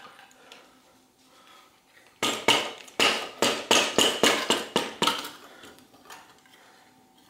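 Rubber mallet striking the lower legs of a seized SR Suntour T890 suspension fork, about a dozen quick blows in a burst of some three seconds, to knock the rusted lowers loose from the stanchions after their bottom bolts are out.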